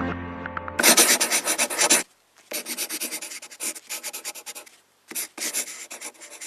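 Rapid scraping strokes, many a second, in three runs broken by short pauses.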